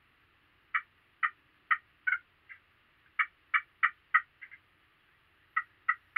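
Turkey yelping: three runs of short, sharp yelps, about two to three a second, with brief pauses between the runs.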